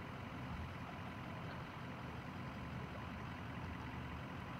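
Idling vehicle engines, a steady low rumble with no change in pitch or level.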